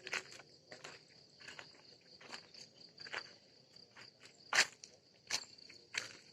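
Footsteps at a steady walking pace, about one every three quarters of a second, over a steady high insect trill.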